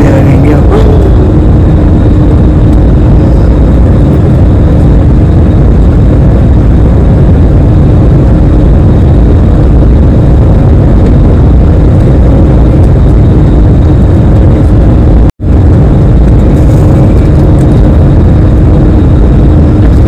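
Airliner jet engines heard from inside the passenger cabin during takeoff: a loud, steady rumble with a steady hum over it. It cuts out for an instant about fifteen seconds in.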